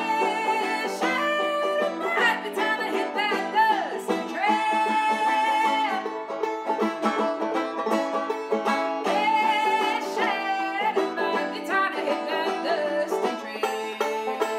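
Banjo played fast and steadily while a woman sings along in phrases, with long held notes and bending pitches.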